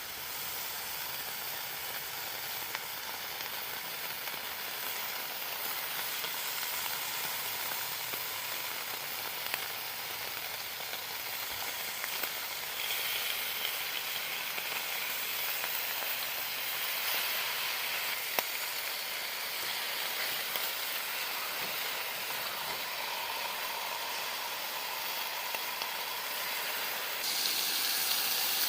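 Bacon frying in a pan over an alcohol stove: a steady sizzle with scattered small pops, getting a little louder near the end.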